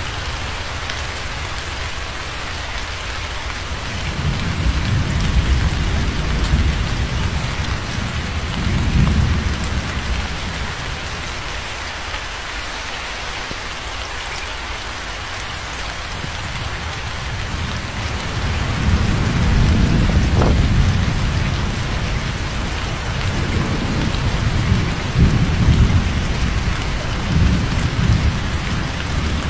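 Steady rain falling, with thunder rumbling low in two long rolls, one starting about four seconds in and another from about eighteen seconds on.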